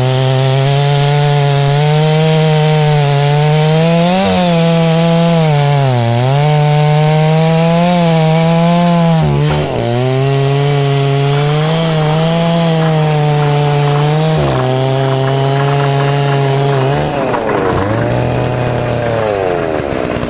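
ZimAni MS660 PRO two-stroke chainsaw with a 110 cm bar running at high revs while cutting wood. The engine pitch drops and recovers every few seconds as the saw is loaded in the cut, with a longer, deeper dip near the end.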